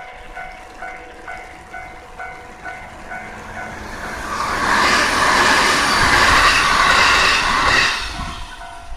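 Japanese level-crossing alarm bell dinging steadily, about two to three times a second. A Yamatoji Line electric train passes over the crossing, loudest from about five seconds in and fading just after eight.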